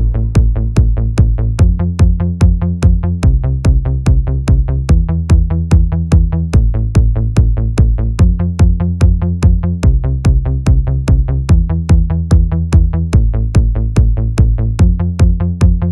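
Electronic dance music with a steady drum-machine beat, about two and a half beats a second, over a stepping bass line.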